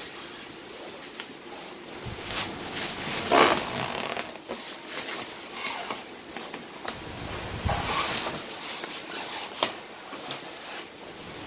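Thin protective plastic sheeting around a TV being gripped and pulled by hand, crinkling and rustling in irregular bursts, loudest about three and a half seconds in and again around eight seconds.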